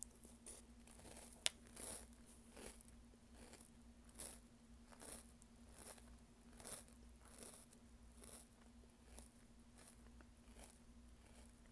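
Faint, close chewing of a mouthful of mini toast cereal soaked in milk, with a soft crunch roughly every second. One sharp click about a second and a half in.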